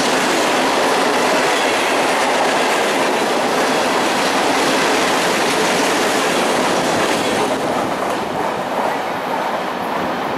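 Loaded freight cars rolling past at close range, steel wheels clattering over the rail joints. The last car goes by about two-thirds of the way through and the noise eases off as the train moves away.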